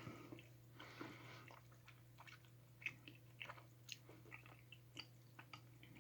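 Faint close-up chewing of a dense, sticky giant gummy bear, with scattered short wet mouth clicks and smacks.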